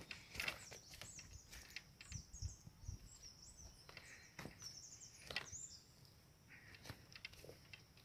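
A small songbird twittering: a run of quick high chirps that stops about two-thirds of the way through, over a few footsteps on the forest floor.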